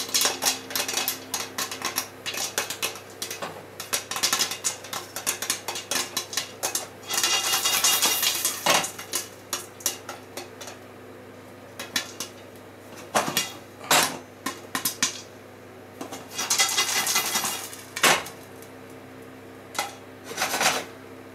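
Steel pot of freshly popped popcorn with its lid held on: a quick run of pops and clinks for several seconds, then two spells of popcorn rustling as the pot is shaken to check for unpopped kernels, with a few single pops or knocks between. A faint steady hum runs underneath.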